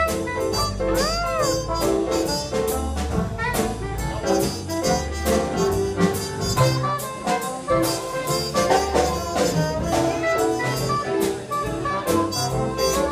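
Live jazz band playing, with saxophone over a steady drum beat.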